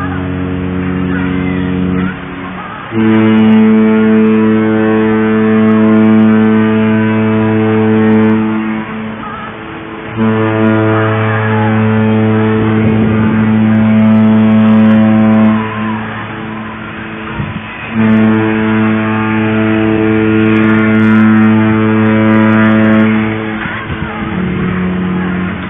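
Cruise ship horns of Harmony of the Seas and Enchantment of the Seas sounding in turn. One horn ends about two seconds in, then three long, steady blasts of about five seconds each. A horn at a higher pitch answers near the end.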